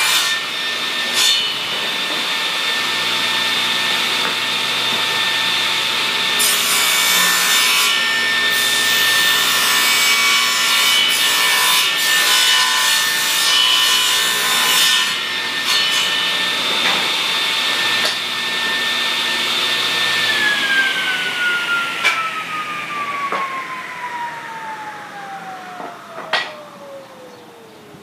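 Table saw running with a steady whine while it rips a board with a row of drilled holes lengthwise down the middle, the wood-cutting noise coming and going over the motor. About two-thirds of the way through, the saw is switched off and its whine falls steadily in pitch as the blade coasts down, with a couple of sharp knocks near the end.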